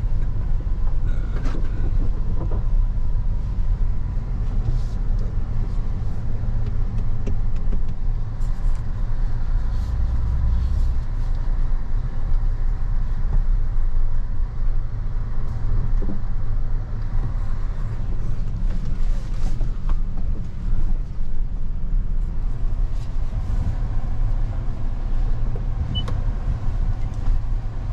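Cab interior of a Toyota Tundra pickup driving slowly over a rough dirt trail: a steady low engine and road rumble, with scattered small knocks and rattles and a heavier thump about ten seconds in.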